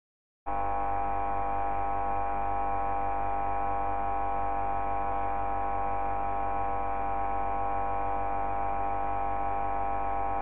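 A loud, steady hum of many held tones that starts abruptly about half a second in and stops abruptly at the end.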